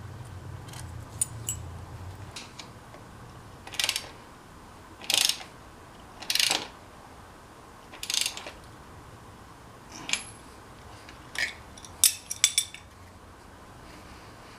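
Ratchet clicking in about six short strokes, a second or two apart, as a bolt is tightened, with a quick run of sharper metal clicks near the end.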